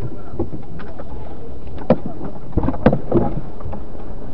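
A car on the move, with steady road and running noise and a few short knocks about two to three seconds in.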